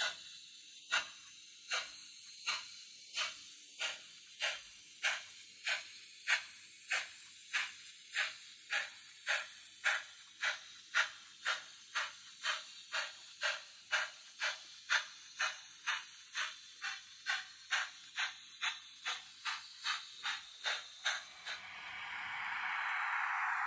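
Steam locomotive chuffing in a steady beat that speeds up from under two to about three chuffs a second, as when pulling away and gathering speed. About two seconds before the end the chuffs stop and a steady hiss of steam takes over.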